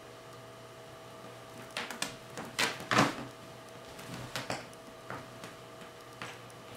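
Bengal kitten clawing and scrabbling at a fleece blanket draped over a chair: a cluster of rustling scratches from about two seconds in, loudest around three seconds, tailing off into a few faint ones. A steady faint hum runs underneath.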